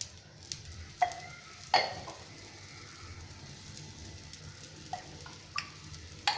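Oil sizzling faintly around a gobi paratha on a hot cast-iron dosa tawa, with about half a dozen sharp metal clinks from the steel oil spoon and cup, the loudest about two seconds in.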